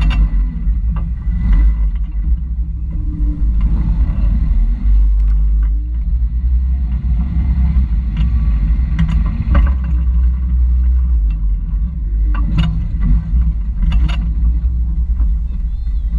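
Toyota rock crawler's engine running at low revs as it creeps over sandstone, with a low rumble and a few sharp knocks from the rig working over the rock, two of them loudest near the end.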